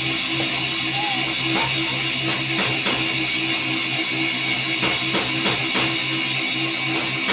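Music with guitar and drums, over a steady low hum.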